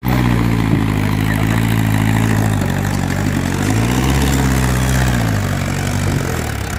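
Mahindra Arjun 605 tractor's diesel engine running under load as it hauls two trailers heavily loaded with sugarcane. Its note dips a few seconds in, rises again about four seconds in, then falls off near the end.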